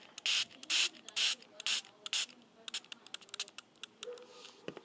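Small plastic spray bottle misting water onto Beados beads to fuse them: five short spritzes, about two a second, then a run of fainter clicks and lighter spritzes.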